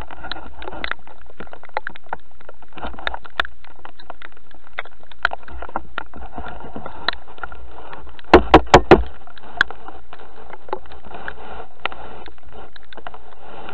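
Heavy rain pattering on a camera mounted on a metal detector: a dense stream of small drop ticks over steady noise. About eight seconds in comes a quick run of four sharp, loud knocks.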